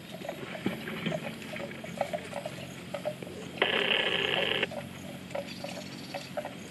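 Animal calls: short chirps repeating a few times a second, joined a little past the middle by a louder, pitched call that lasts about a second and stops abruptly.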